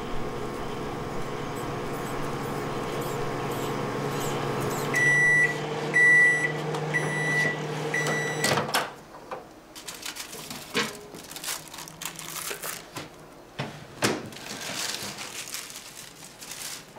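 Microwave oven running with a steady hum, then beeping four times about a second apart as it finishes. The hum cuts off with a click, followed by quieter scattered clinks and knocks of dishes and cutlery.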